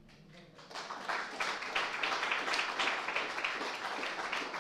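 Audience applauding, the clapping breaking out under a second in and continuing as a dense patter of many hands.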